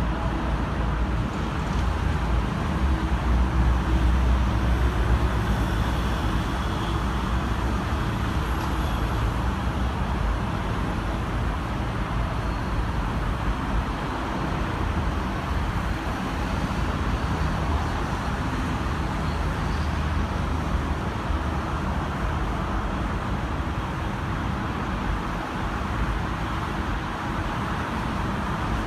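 Diesel train engine idling: a steady low rumble, a little louder for a few seconds near the start.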